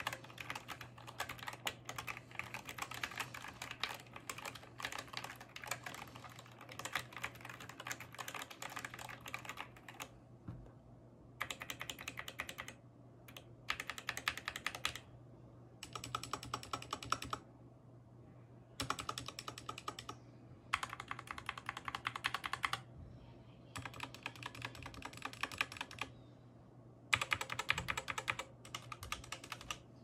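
Typing on a 60% mechanical keyboard (Epomaker SK61) fitted with lubed Gateron optical black linear switches and case foam. The first ten seconds or so are continuous typing. After that come short bursts of fast keystrokes, each a second or two long, with brief pauses between them.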